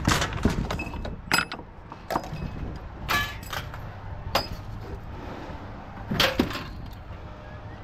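Pieces of scrap metal clanking and knocking as they are handled and set down. There are a dozen or so separate strikes, a few with a short metallic ring, over a low steady rumble.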